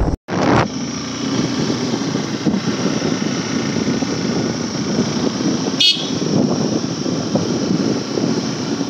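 Motorcycle running along a road with wind noise on the microphone, a steady rumble. About six seconds in there is one brief, high-pitched chirp.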